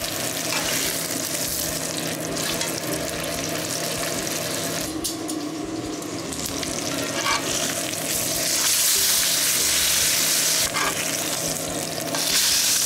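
Steak searing in hot vegetable oil and foaming butter in a cast-iron skillet: a steady sizzle that grows louder about eight seconds in.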